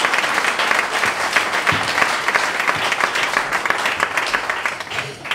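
Audience clapping, a dense steady round of applause that dies away near the end.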